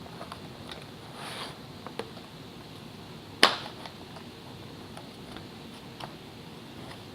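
Small clicks and taps of terrain kit pieces being pressed and fitted together, with one sharp, louder click about three and a half seconds in and a brief rustle about a second in.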